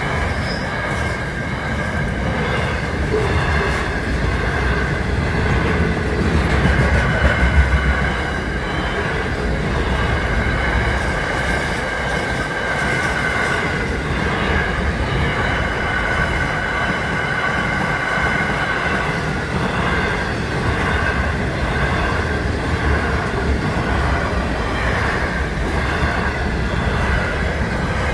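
Container freight train passing close by at speed: a steady loud rumble of wagons with the wheels clicking rhythmically over the rail joints, and a steady high-pitched tone over it.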